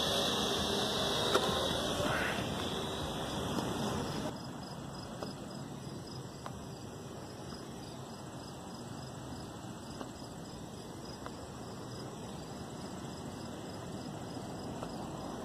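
Crickets chirping in a steady, repeating pattern over outdoor background noise. The first few seconds are louder, with a steady hum and one sharp knock about a second and a half in.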